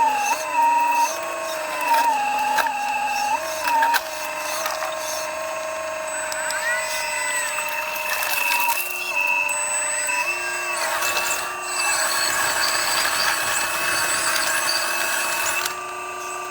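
Small remote-control excavator's electric motors whining, the pitch stepping up and down as the controls are worked and the load changes, with a few cracks and knocks from the bucket working wood and debris.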